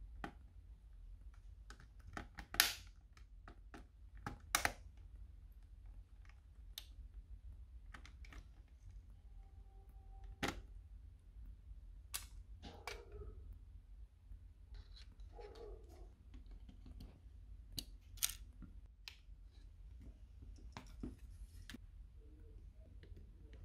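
Plastic clips of a PS4 DualShock 4 controller shell clicking and snapping as the two halves are pried apart with a plastic pry tool. It is an irregular string of sharp clicks, the loudest two a few seconds in, with softer handling noises of the plastic between.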